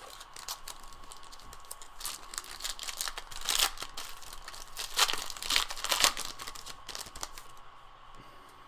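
Foil wrapper of a trading-card pack crinkling and tearing as it is ripped open, a run of sharp crackles with the loudest rips a little past the middle.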